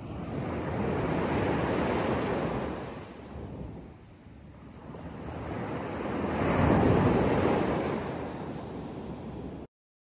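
Small sea waves breaking and washing up a sandy beach in two surges, the second louder. The sound cuts off abruptly near the end.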